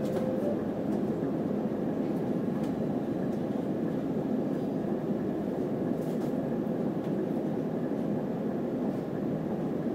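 City feeder bus running: a steady low engine and road noise with a few faint clicks.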